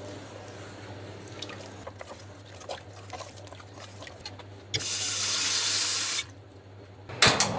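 A kitchen tap running into a stainless steel frying pan for about a second and a half, the loudest sound, after faint scraping and tapping of a wooden spatula stirring soup in a stainless steel pot. A short loud knock comes near the end, and a steady low hum runs underneath.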